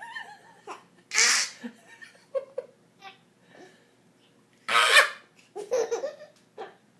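Baby laughing and babbling, broken by two loud breathy noise-making bursts, about one second in and about five seconds in.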